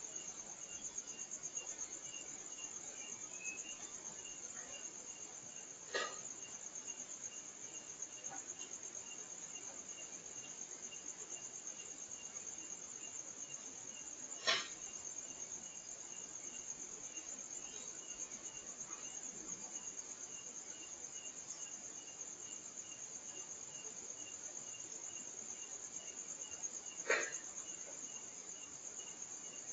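Night insects, crickets, chirring steadily and high, with a faint regular ticking call about twice a second. Three sharp knocks stand out, roughly eight to twelve seconds apart, like something being struck.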